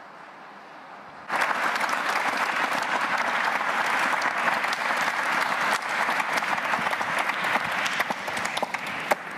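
Audience applauding, starting suddenly about a second in and thinning out near the end.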